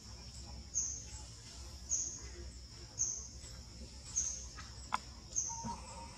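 A bird's short, high chirp repeating evenly about once a second over a faint steady background, with a brief lower call about five and a half seconds in.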